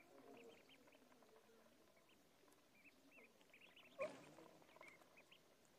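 A group of ducklings peeping in many short, high chirps as they feed from a dish, with a single sharp tap about four seconds in.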